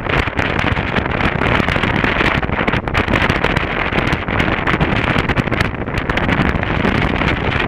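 Wind rushing and buffeting over the microphone of a camera on a moving motorcycle, a steady rush with fast flutter, with the motorcycle's engine running beneath it.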